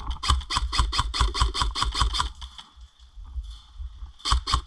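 Airsoft rifle firing rapid strings of shots, about eight a second, for over two seconds, then a second string near the end.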